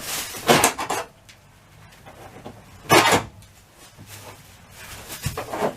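Three short scraping, rubbing noises of handling work: one near the start, one about three seconds in and one near the end.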